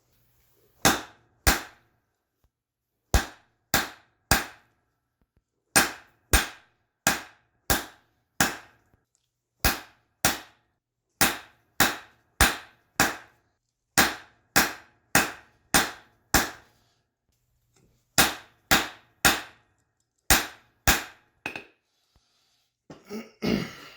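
Hand hammer striking a railroad spike on the anvil, forging a collar by the half-on, half-off method at the anvil's edge. Sharp ringing blows, about two a second in short runs with brief pauses between, and a short clatter near the end.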